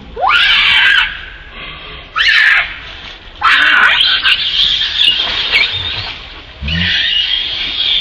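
Southern pig-tailed macaque screaming: four loud, high-pitched screams, each sweeping sharply up in pitch at its start, the last two drawn out for about two seconds each.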